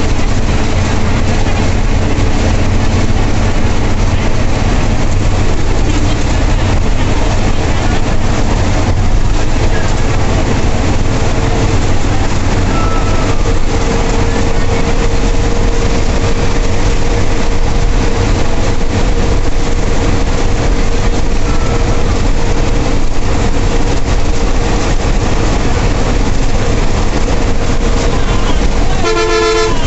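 Ashok Leyland 160 HP turbocharged bus engine running steadily at cruising speed, with road and cabin noise from the driver's cab. A short horn blast sounds near the end.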